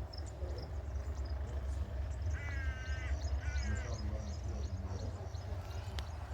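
Two short animal calls, the first longer, about a second apart, heard over a steady low rumble of wind on the microphone.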